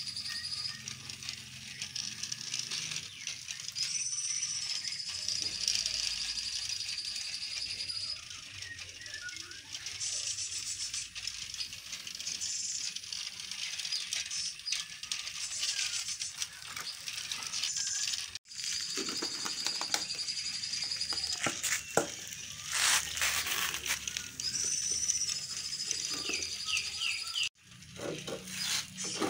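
Battery-powered toy steam locomotive running on plastic track: a steady mechanical rattle and clicking of the small wheels and motor, with a thin high whine that comes and goes several times. The sound cuts out abruptly twice.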